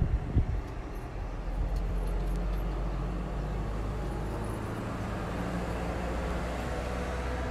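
Steady low rumble of a running vehicle, with two low thumps right at the start.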